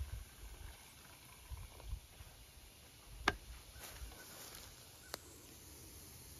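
Faint handling of a plastic vinegar jug over a plastic tub as the pour ends and the jug is lifted away, with low rumbling bumps in the first two seconds. A sharp click a little over three seconds in and a lighter one about five seconds in.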